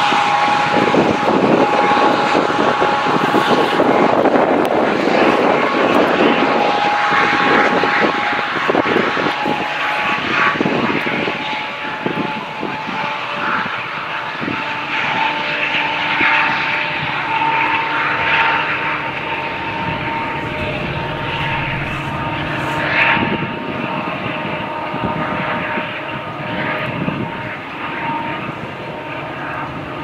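Diesel locomotive engine drone as Metra MP36 425 pulls its train away, fading gradually, with a steady whine running through it and scattered knocks from the moving train.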